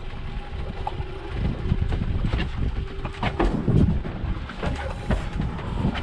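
Steady low rumble of wind and water around a small open motorboat, with irregular knocks and clicks from the hull and gear.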